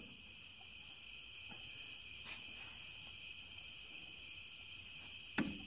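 Steady high-pitched insect trill over faint handling clicks at a stopped metal lathe, with one sharp knock about five seconds in.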